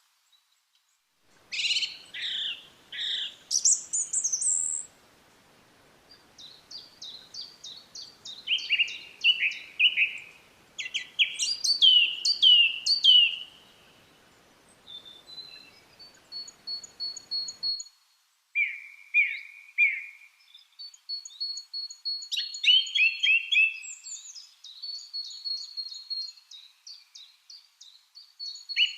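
Lovebirds chirping: sharp, high chirps and quick runs of repeated short calls, with a brief pause partway through.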